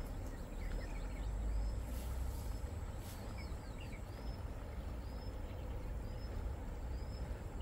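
Outdoor riverside ambience: a steady low rumble, over which a bird repeats a short high chirp about once a second.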